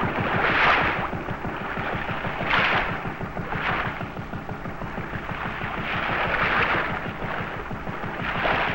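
Sea water washing against a sportfishing boat's hull: a steady rumbling wash with a louder hissing surge every second or two.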